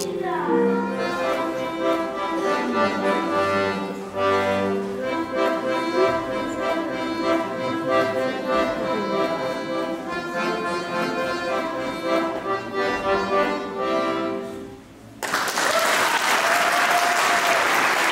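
Solo accordion playing a piece of held chords and melody notes, which ends about fifteen seconds in. Audience applause follows.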